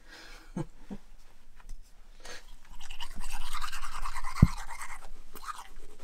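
Manual toothbrush scrubbing teeth in quick strokes, loudest from about three seconds in. One sharp thump comes partway through the brushing, and a few light knocks and rustles come before it.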